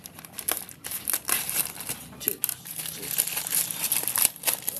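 Plastic parcel wrapping being crinkled and torn open by hand: irregular crackling rustles throughout.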